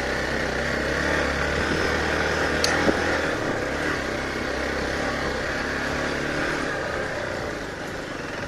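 Hero Xpulse 200 4V's single-cylinder engine running at low speed on a rough dirt track, under a steady rush of wind and road noise. A single sharp click about two and a half seconds in.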